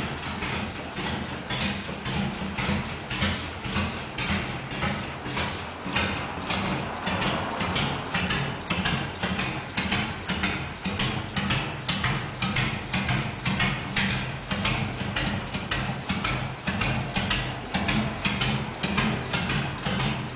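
Harley-Davidson Sportster 883's V-twin engine idling through newly fitted exhaust pipes, with the uneven pulsing 'potato' lope, a few beats a second.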